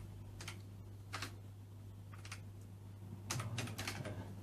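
Keystrokes on a Sinclair ZX Spectrum 128 +2 keyboard: a few single key clicks spaced out, then a quick run of presses near the end.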